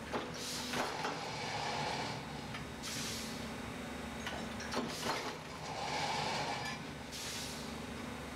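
Heavy metal-forming machine working exhaust-pipe parts. It hisses about every two seconds, four times in all, with a few sharp metal clanks and a steady hum underneath.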